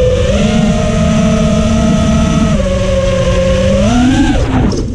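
5-inch FPV quadcopter's brushless motors and propellers whining in flight. The pitch holds steady, shifts with the throttle, rises about four seconds in, then drops away near the end. Rough wind noise on the onboard camera's microphone runs underneath.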